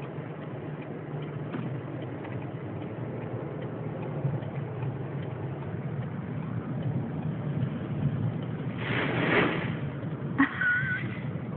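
Car engine idling, heard inside the closed cabin, under a steady rush of wind buffeting the car, with a louder surge of noise about nine seconds in.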